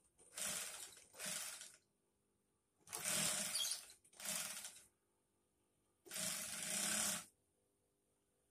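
Industrial sewing machine, driven by the motor under its table, running in five short bursts of stitching, each about a second long: two close together, a pause, two more, a pause, then a slightly longer one.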